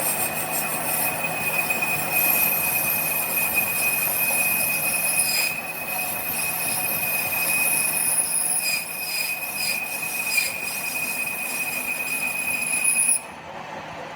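A workshop machine working metal with a steady, high-pitched squeal over a hiss, which cuts off suddenly about a second before the end.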